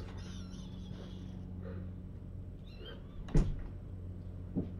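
A dull thump about three and a half seconds in and a lighter one a second later, over a steady low hum, with faint high kitten squeaks in the first second and a half.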